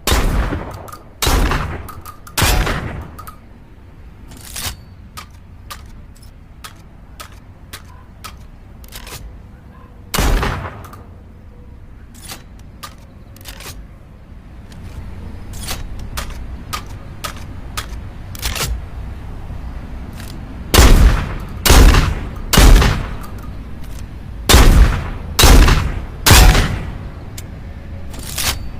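SPAS-12 shotgun firing sound effect: loud shots, three in quick succession at the start, a single one about ten seconds in, and a fast run of six near the end, with quieter mechanical clicks and clacks in between.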